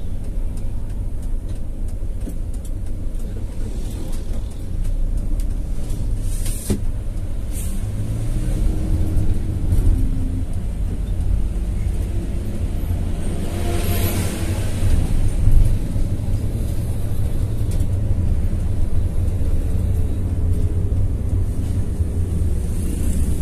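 Coach engine running and tyre and road noise heard from inside the cab of a moving bus: a steady low rumble, with the engine note shifting in pitch a few times. A short hiss of air comes about two-thirds of the way through.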